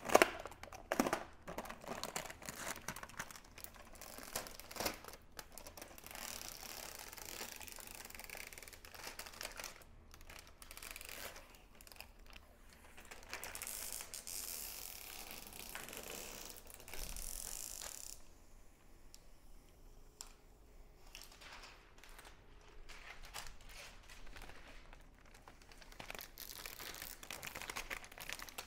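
Plastic packaging crinkling and rustling as it is handled, with scattered light knocks and clicks in the first few seconds. The rustling is densest in the middle and thins out for several seconds near the end.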